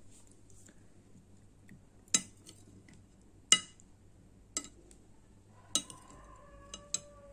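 Metal spoon clinking against an amber glass soup bowl while eating: about six sharp clinks, a second or so apart, the last two close together.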